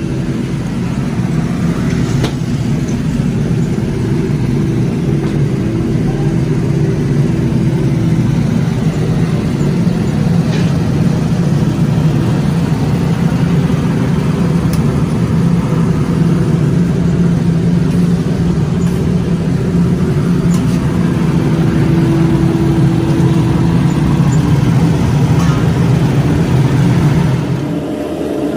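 A steady low mechanical drone with a constant hum, which changes and drops slightly near the end.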